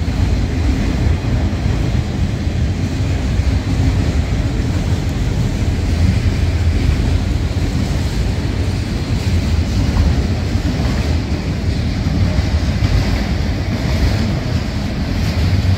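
Freight train rolling past, a steady low rumble of wheels on rail.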